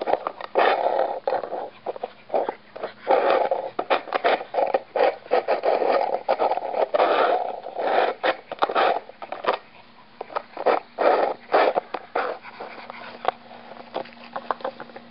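Plastic frisbee scraped and knocked across an asphalt driveway as a Boston terrier paws and noses it along, in rapid irregular scrapes and clicks. The scraping thins out and goes quieter in the last few seconds.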